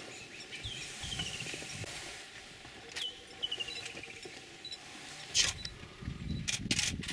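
Wild animal sounds: a call comes twice, each a sharp falling note followed by a run of descending notes. From about five seconds in there is irregular crackling and clicking over a low rumble.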